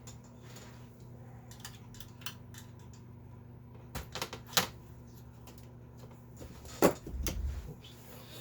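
Scattered clicks and light metallic taps of the opened Commodore 64's board and parts being handled, with a few sharper taps about four seconds in and the loudest click about seven seconds in, over a faint steady low hum.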